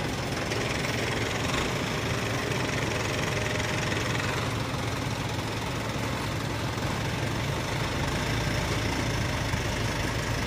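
Diesel dump truck engine running steadily at low revs.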